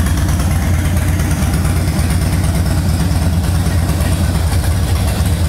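Harley-Davidson Fat Boy Lo V-twin, bored out to 103 cubic inches, idling steadily through a Vance & Hines full exhaust.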